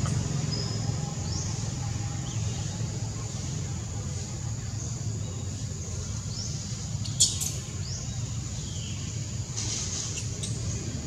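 Outdoor ambience: a steady low hum with short, high, falling chirps repeating about once a second, and a sharp click about seven seconds in.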